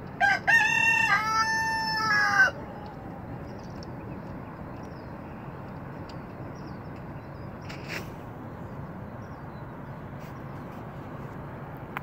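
A rooster crows once, a cock-a-doodle-doo of about two seconds: two short opening notes, then a long held note that falls at the end. After it only a steady faint background hiss remains.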